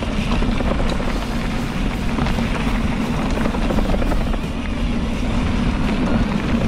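Mountain bike riding on a trail, recorded on a helmet or body-mounted action camera: a steady rumble of wind buffeting the microphone mixed with tyre and trail noise. Music plays under it.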